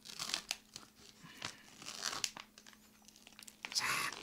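Plastic wrapping crinkling and rustling as it is handled, with a few sharper tearing sounds; the loudest burst of crinkling comes near the end.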